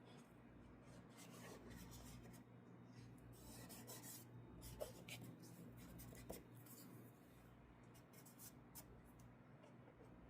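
Faint rubbing and light scraping of small miniature kit pieces being handled and pressed into place by hand, with a couple of soft clicks near the middle.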